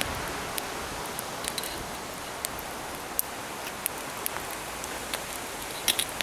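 Shashlik grilling over hot coals: a steady sizzle with scattered small pops and crackles.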